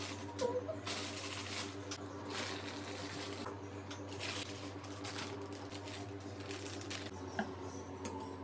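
Rustling of plastic and foil takeaway food packets being handled, in repeated short bursts, over a steady low hum.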